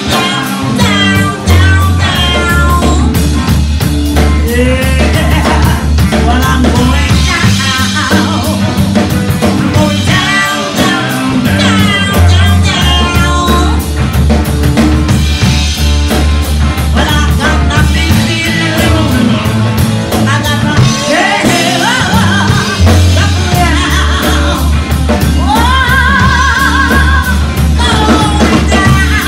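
Live rock band playing: a female singer's phrases over electric guitar, electric bass and drum kit, with the bass and drums keeping a steady driving beat.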